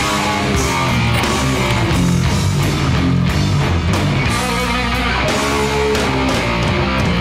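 Rock music with guitar, playing steadily as a soundtrack.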